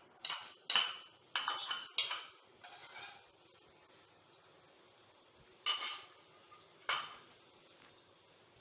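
A metal spatula clinking and scraping against a small ceramic bowl and a wok as chopped garlic is tipped into the oil and stirred: a quick run of sharp clinks in the first three seconds, then two single clinks later on.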